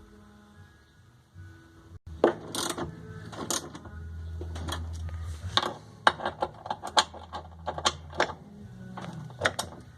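Irregular sharp metallic clicks and knocks, like hand tools working on metal parts, over a low hum. Soft background music plays in the first two seconds.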